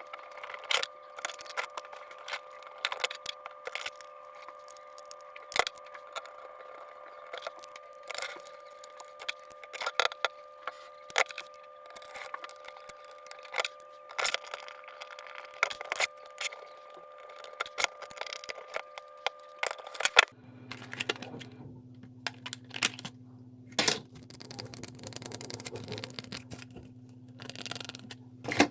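Irregular sharp clicks and clacks of small hard keyboard parts being handled and fitted together. A steady hum runs underneath and switches abruptly to a lower hum about twenty seconds in.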